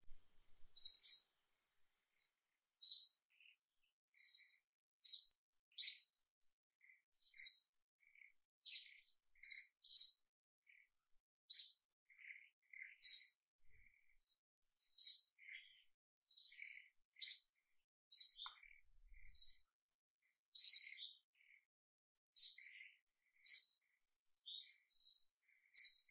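A bird chirping repeatedly: short, high chirps come every second or two, with softer, lower notes in between.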